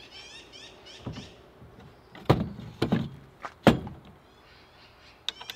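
Four sharp knocks as a Reico Titan electric camper jack is handled and seated in its mounting bracket on the camper's side, the loudest about two and a half and three and a half seconds in, with a few small clicks near the end.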